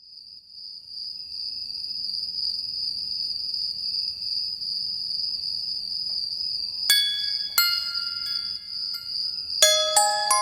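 Crickets chirping steadily in a high, even trill, joined about seven seconds in by two single glockenspiel-like bell notes and then a quick run of ringing notes near the end as a song intro begins.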